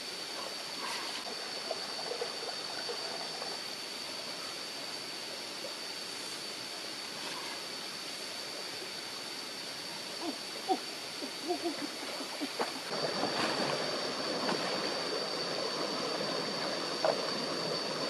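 Shallow rocky stream running, water washing over stones, with a steady high whine throughout. A few small splashes come about ten to twelve seconds in, and the running water gets louder a little later.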